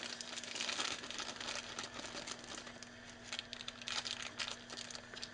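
Clear plastic parts bag crinkling in irregular bursts as it is handled, over a faint steady hum.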